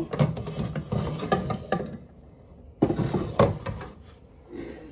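Metal baking sheet of freshly baked cookies clattering and scraping against a hard surface as it is handled and set down: a run of clicks and knocks over the first two seconds, then another short clatter about three seconds in.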